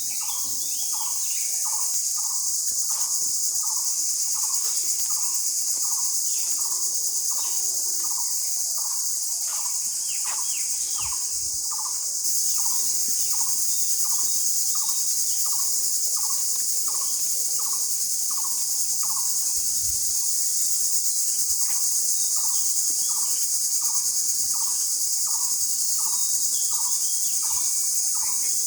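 Steady, high-pitched insect chorus, the loudest sound throughout. Over it, a short call is repeated about twice a second, pausing briefly about two-thirds of the way through, with a few other bird calls now and then.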